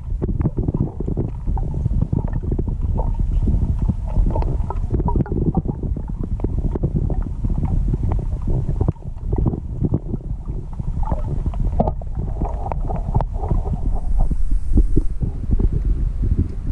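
Muffled underwater rumble of river water heard through a submerged camera, with many small clicks and crackles.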